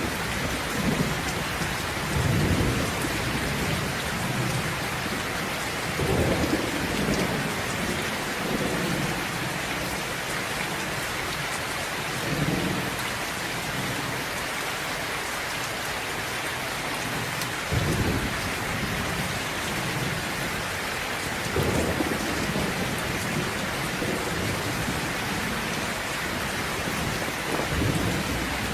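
Steady rain falling, with low rumbles of thunder swelling up every few seconds.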